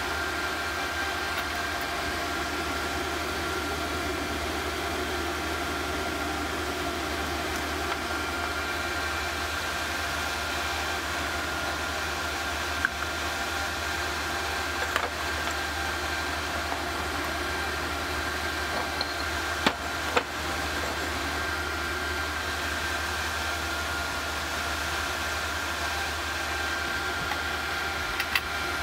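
Small induction heater running steadily while melting bronze in a graphite crucible: an even hum and hiss with faint steady high tones. A few light knocks come and go.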